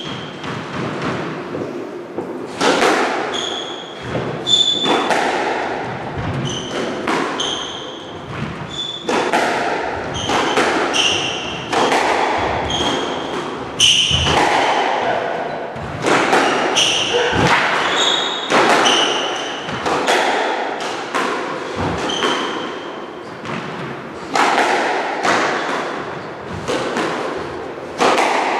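Squash rally: the ball smacks off rackets, walls and floor about once a second, each hit echoing around the court, with short high squeaks of court shoes on the wooden floor between the hits.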